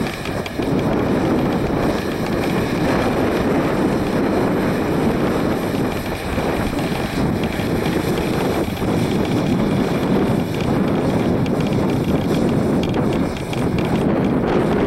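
Versatile 290 tractor running steadily as it pulls a corn planter across the field, with wind buffeting the microphone.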